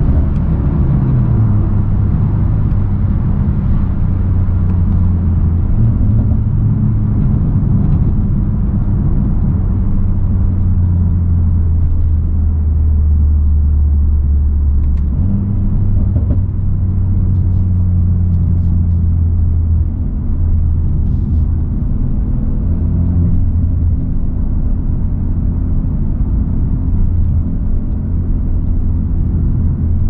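Mercedes-AMG A35 saloon's 2.0-litre turbocharged four-cylinder engine cruising at a steady low drone with tyre and road noise, heard from inside the cabin. The engine note shifts slightly in pitch about halfway through.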